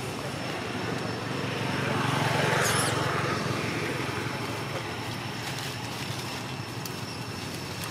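A vehicle passing by: its noise swells to a peak about two and a half seconds in and then fades, over a steady low hum.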